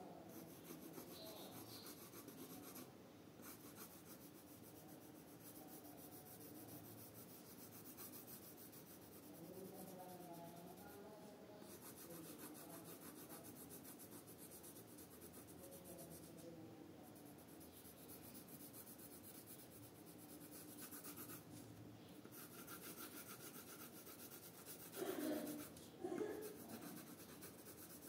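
Faint, steady scratching of a coloured pencil shading on paper in quick repeated strokes, with two brief louder noises near the end.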